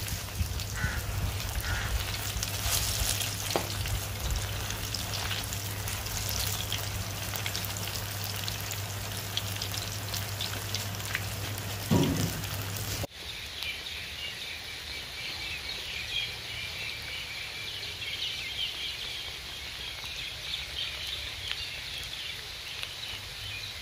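Chicken pakoras deep-frying in hot oil in an iron karahi, sizzling steadily, with a sharp scrape of the metal skimmer against the wok about twelve seconds in. The sound then cuts off suddenly and gives way to light rain outdoors with a steady chorus of high chirping.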